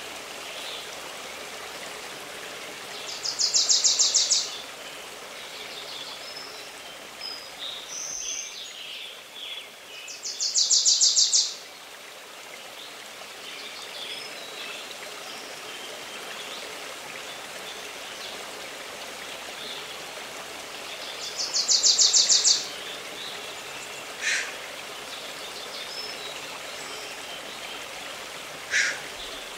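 A woodland stream running steadily, with a songbird singing a short, loud, rapid high trill three times, several seconds apart, and other birds chirping briefly in between.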